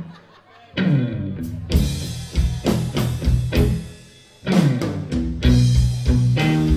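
Live blues-rock band playing: electric guitar, bass guitar and drum kit. After a quiet first second the band comes in, drops back briefly about four seconds in, then plays on at full strength.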